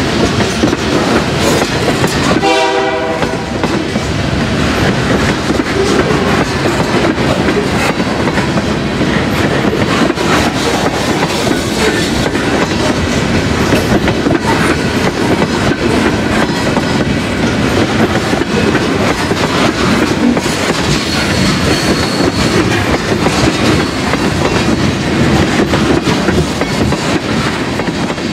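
Freight cars rolling past close by: a steady, loud rumble of steel wheels on rail with clickety-clack over the rail joints. About two and a half seconds in, a brief horn blast of about a second sounds over it.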